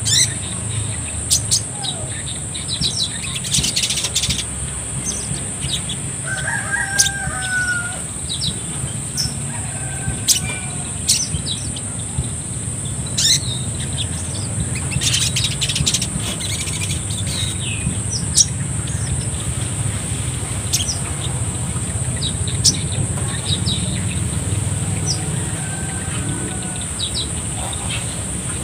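A caged sunbird giving short, sharp high chirps, scattered irregularly over the whole stretch. Beneath them run a steady high-pitched whine and a low hum.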